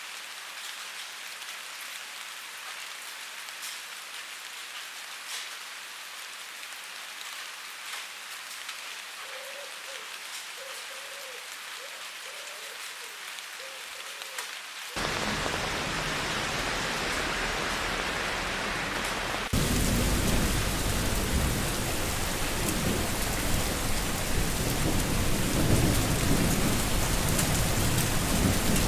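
Rain and water running off a rain gutter: a light, even hiss with scattered drip ticks, then two sudden steps up, about halfway through and again a few seconds later, to a much louder, heavier rush with a low rumble.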